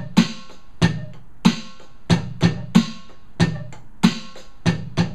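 Electronic drum kit played through an amplifier: a steady beat of sharp stick hits on the pads and cymbal pads, the loudest hits coming about every two-thirds of a second.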